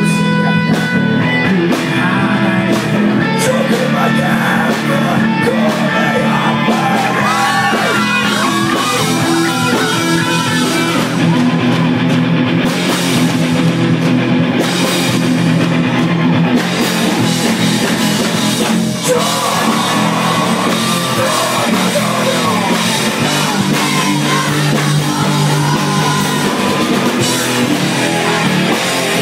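A punk rock band playing live: electric guitars and a drum kit, with a male singer's vocals coming and going over them.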